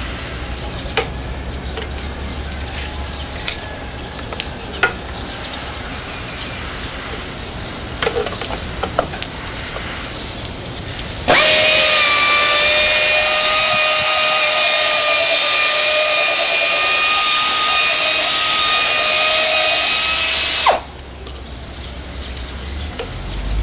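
Pneumatic wet polisher mounted in a GPW-A01 stone beveling jig, running on a granite slab edge: a loud steady whine with air hiss starts suddenly about halfway through and cuts off sharply some nine seconds later. Before it, a quieter stretch with a few knocks.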